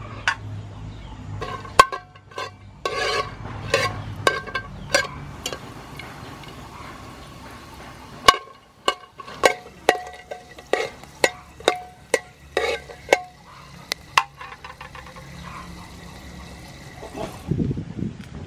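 Metal ladle stirring star anise in hot oil, clicking and scraping against the side and bottom of a large metal pot, which rings briefly after each knock.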